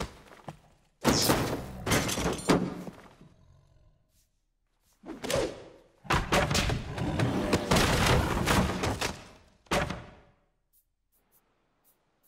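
Cartoon crashing and thudding sound effects in several bursts of a second or more as a bear tumbles about a room and knocks a television set over, with one sharp bang near the end of the last burst.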